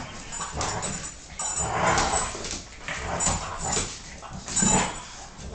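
Two dogs, an American Staffordshire terrier and a Boston terrier, making dog sounds in uneven bursts during rough play, with the loudest burst shortly before the end.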